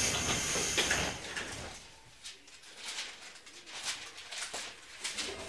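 Loud air hiss from the 205 series electric train's pneumatic system dying away over the first second or so, followed by a quieter stretch with scattered faint short sounds.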